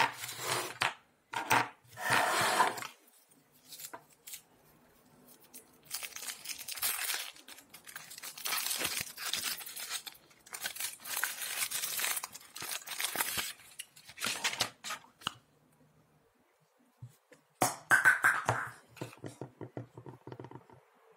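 Foil wrapper of a chocolate surprise egg crinkling and tearing in several bursts as it is peeled off. Near the end come sharp cracks and clicks as the thin chocolate shell is broken into halves.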